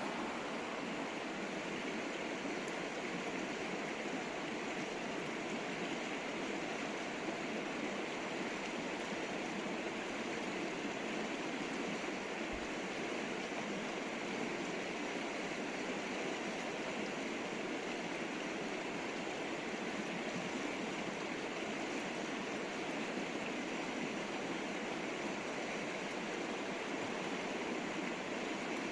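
A river's flowing water, a steady even rush with no change in level.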